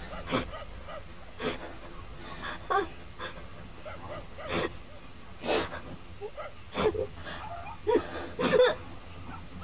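A young woman sobbing in pain as a wound on her back is dressed: sharp, gasping breaths about once a second, some catching into a short whimper.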